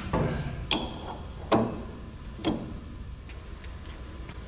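Four sharp knocks about a second apart, then a few faint ticks, from fitting a bolt into a rear leaf-spring eye mount.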